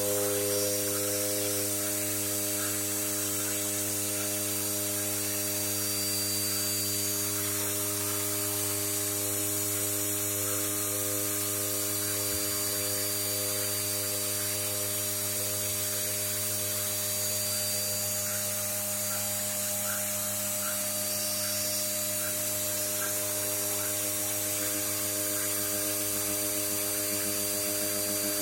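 Cosmec Conquest CNC machining centre running: a steady motor hum made of several held tones with a thin, high steady whine above it, and faint light ticking.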